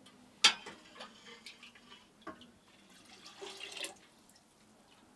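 Long-handled sauna ladle knocking sharply once against a steel-lined wooden bucket, then scooping aroma water for löyly, with small clinks and dripping. A short splashing hiss comes a little past the middle.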